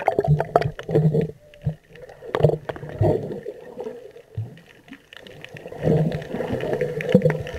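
Muffled underwater sound from a submerged camera: gurgling and bubbling water with irregular low rumbles and short knocks as snorkelers swim and kick close by.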